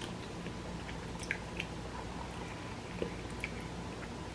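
A person chewing a mouthful of noodles, with a few faint wet mouth clicks over a steady low background hum.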